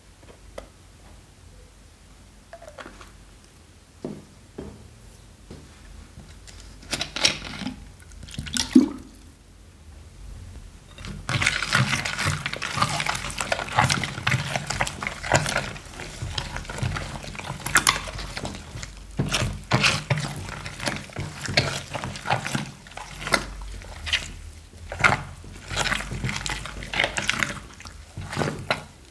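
Silicone spatula stirring a wet, foamy slime mixture with small beads in a glass dish, making squelching and crackling sounds as borax activator is worked in and the slime starts to form. The first third is quieter, with a few small clicks and drips, before the steady stirring starts.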